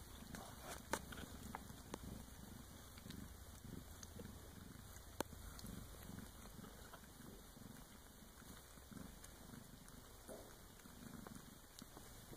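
Bengal cat purring steadily in soft pulses about twice a second, with a few faint sharp clicks, the loudest about five seconds in.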